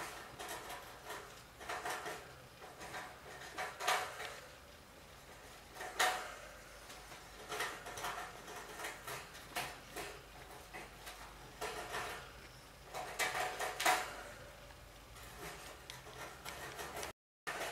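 Irregular rustling and crackling of shredded paper-towel nesting material as a degu shifts about in its nest, some crackles sharper than others.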